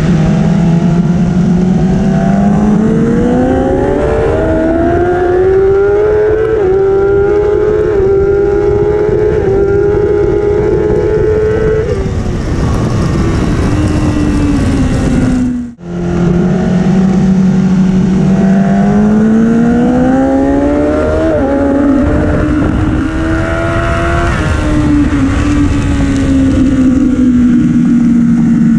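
Onboard sound of a 2013 Kawasaki ZX-10R superbike's inline-four engine at racing speed in the wet. The engine note climbs slowly and holds, then falls, with a rush of wind, and there is a brief drop-out about halfway through. The slow, drawn-out rises in revs fit the worn, slipping clutch the team reported for this race.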